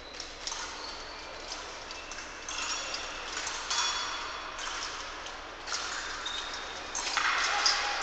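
Épée blades clinking and fencers' feet tapping and scuffing on the piste: a string of short metallic pings and taps, busiest from about two and a half seconds in and again near the end.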